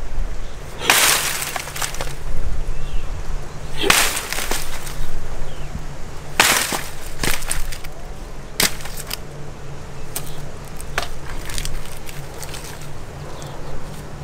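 Dry thorny brush being hacked with a hand blade: three heavy crackling, swishing strokes in the first seven seconds or so, then lighter snaps and clicks of twigs breaking.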